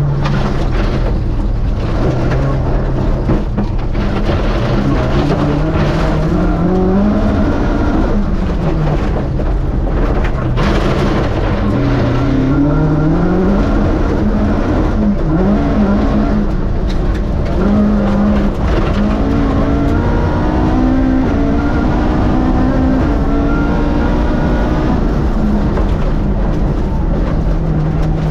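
Rally car's Vauxhall 2.0-litre four-cylinder race engine at full stage pace, its pitch climbing under acceleration and dropping repeatedly through gear changes and braking, over constant tyre and road noise.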